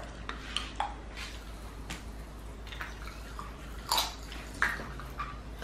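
Pop Rocks popping candy crackling in a mouth: scattered small pops and crackles, irregular, a few sharper ones near the end.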